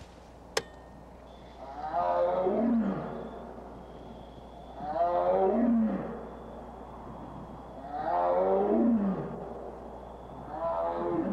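Recorded tiger calls played back through a loudspeaker: four long calls about three seconds apart, each falling in pitch. A single sharp click comes just before the first.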